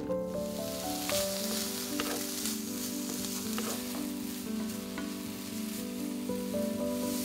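Diced ham sizzling in a hot honeycomb-textured stainless-steel frying pan while a wooden spatula stirs it, with a few sharp scrapes and taps. Soft background music with held notes plays along.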